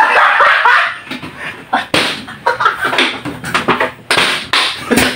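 Loud laughter, then a few sharp smacks of a large plastic water bottle struck against a man's head, with laughing and yelps between the blows.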